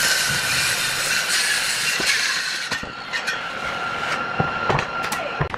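Handheld electric circular saw cutting through a wooden board, then running free with a steady whine once the cut is through, and stopping near the end. A few wooden knocks as the boards are handled.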